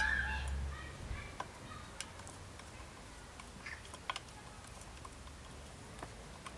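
Faint, scattered metallic clicks and ticks of a hex key working the mounting bolts as a disc brake caliper is loosely bolted onto a fork's post mounts. A brief high-pitched cry sounds right at the start.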